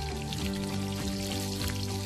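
Breaded potato balls deep-frying in hot oil in a wok, a steady crackling sizzle, with background music playing over it.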